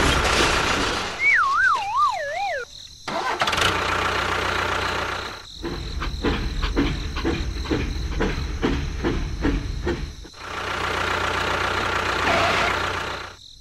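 Engine sound effect for a toy tractor: a motor vehicle engine running. About a second in comes a wavering tone that falls in pitch for about a second and a half. Later the engine chugs rhythmically at about two to three beats a second, then runs steadily.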